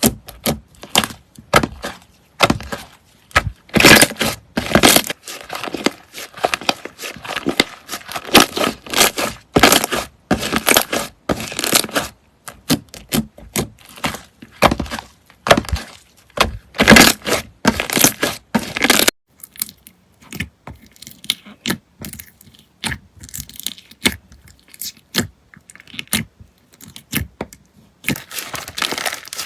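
Crunchy slime being squeezed, pressed and poked by hand, giving dense crackling and crunching with sharp pops. About two-thirds of the way through the crackling becomes quieter and sparser.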